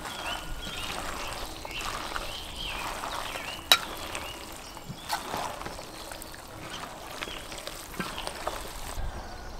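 Hands mixing chopped raw meat and offal with herbs and onions in an enamel bowl: wet squishing and rustling as the pieces are kneaded and tossed. A single sharp click a little over a third of the way in.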